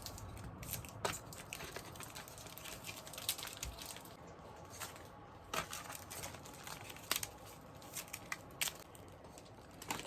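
Snack packaging being handled, with plastic wrappers crinkling and rustling in scattered short crackles and clicks.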